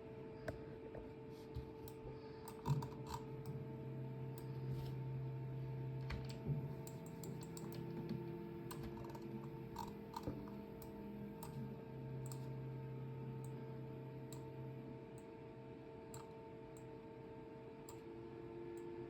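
Scattered clicks and taps of a computer keyboard and mouse, faint, over a steady electrical hum.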